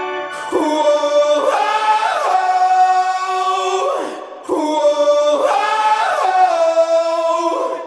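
Soundtrack music with a sung, choir-like vocal melody, in two phrases with a short break between them just past the middle.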